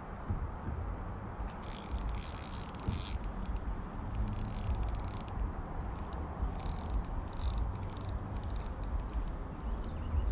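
Okuma Alaris spinning reel whirring in several bursts of about a second each as line runs through it, over a steady low rumble.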